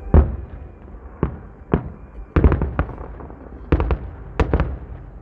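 Aerial fireworks shells bursting in a run of sharp bangs, the loudest just at the start, with quick clusters of several bangs about two and a half and four seconds in.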